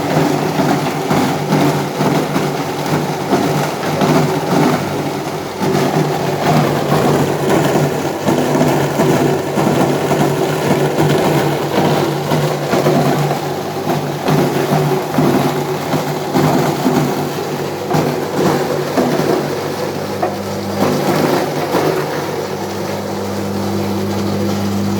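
Tomato paste machine running: a steady motor hum with a fast, continuous rattle. Toward the end the rattle eases into a smoother, steadier hum.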